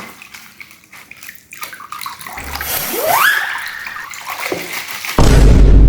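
Wet squishing and sloshing of slime being handled, with a short rising squeak about three seconds in. Near the end a much louder, dense wet sound starts suddenly.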